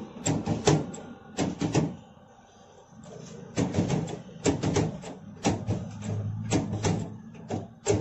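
Hand-lever potato chipper (french-fry cutter) clacking as its handle is worked to press whole potatoes through the blade grid, in quick pairs of sharp knocks about once a second, with a short lull about two seconds in.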